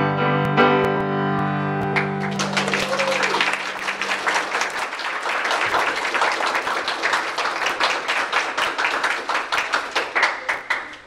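A four-hands piano duet on a Steinway grand ends on a held chord that rings and fades. From about two seconds in, an audience applauds, stopping abruptly at the end.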